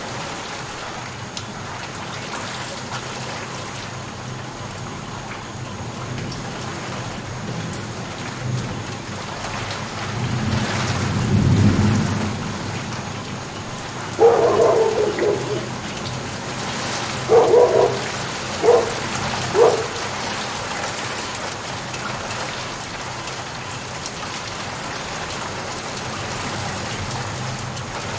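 Steady rainfall, with a low rumble of thunder swelling and fading about halfway through. Soon after, four short, sharp calls stand out above the rain, the loudest sounds present.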